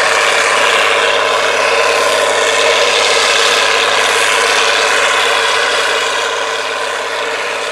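International 1566 tractor's turbocharged six-cylinder diesel running steadily under load as it pulls a moldboard plow through the soil, growing slightly quieter near the end.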